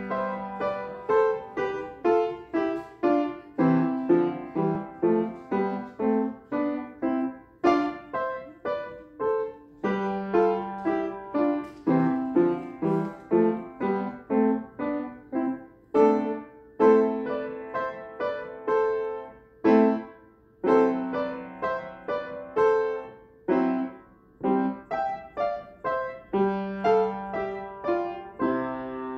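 A child plays a simple piece on a wooden upright piano with both hands. Notes sit in the middle register and come at a steady moderate pace, about two a second, each fading after it is struck, with a few brief pauses.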